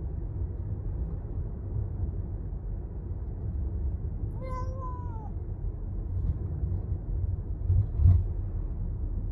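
A tuxedo cat in a pet carrier meows once, a call of about a second that drops in pitch at its end, over the steady low rumble of a car cabin. A brief dull thump about eight seconds in.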